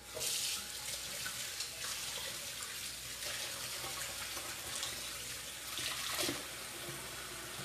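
Kitchen faucet running into a stainless steel sink while hands are washed under it: a steady rush of water that comes on sharply as the tap is turned on.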